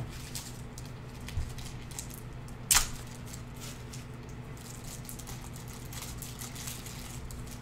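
Plastic packaging of card sleeves being handled, with faint crinkles and ticks and one sharp click a little under three seconds in. A steady low hum runs underneath.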